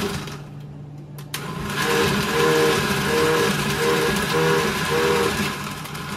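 Kitchen blender motor blending red chile: it drops briefly, clicks about a second in, then runs loud again with its pitch swelling and fading in regular pulses as it labours. The blender is struggling to cope with the chile.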